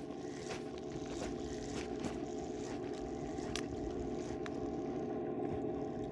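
Boat motor running with a steady hum of several even tones, with a few faint scattered ticks.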